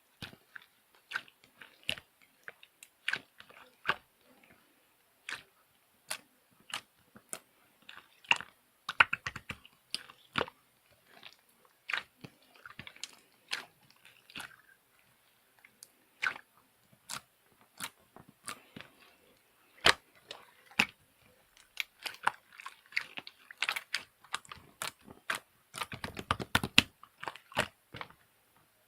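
Close-up crunching: sharp, irregular clicks and crackles, with a dense flurry near the end.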